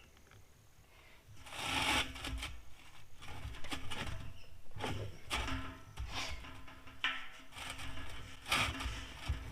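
Irregular rasping, rubbing strokes of hand work on a part, roughly one a second, starting about a second in.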